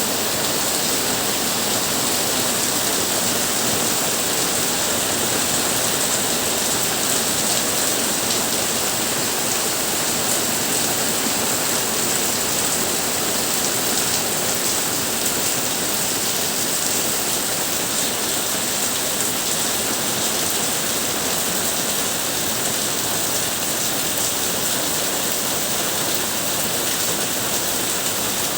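Monsoon rain falling steadily, an even hiss that holds at the same level throughout.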